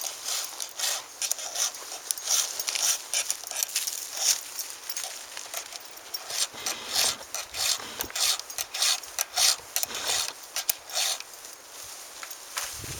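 A file stroking across chainsaw chain cutter teeth during hand sharpening: many short scraping strokes in an uneven rhythm, a few per second, with brief pauses between runs.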